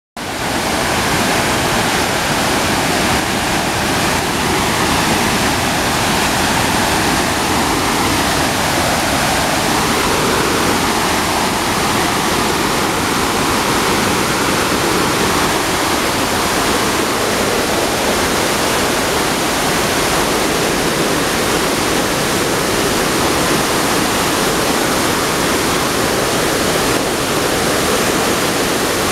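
Waterfall rushing: a loud, steady noise of falling water with no breaks.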